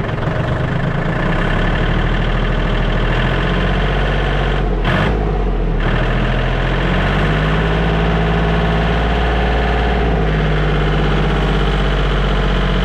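Kubota L2650 tractor's diesel engine idling steadily, heard close to its upright exhaust stack.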